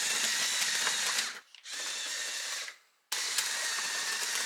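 Mould King toy excavator's extra large electric motors and plastic gearing whirring as its tracks drive over rocks, with light clicking. The whirr cuts out briefly twice and starts again.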